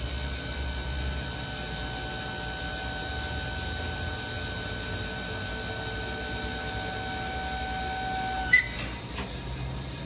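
Electric motor and hydraulic pump of a Weatherhead T-410 hose crimper running, a steady hum with a high whine over it. About eight and a half seconds in there is a sharp click and the whine stops.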